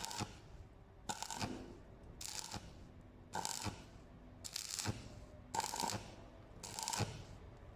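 Welding arc on thin 1 mm square tube, struck in short bursts about once a second, seven in all: stitch welding in pulses so the thin wall doesn't burn through. Each burst is a brief crackling hiss.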